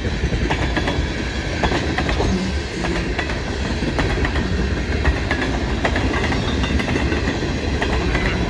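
Freight train cars of CN train A425 rolling past with a steady rumble, their wheels clicking repeatedly over the rail joints.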